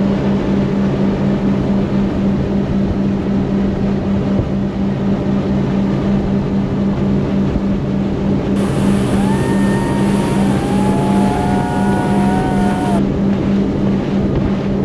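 Tour boat's outboard motor running steadily at cruising speed, a loud, even drone with wind on the microphone.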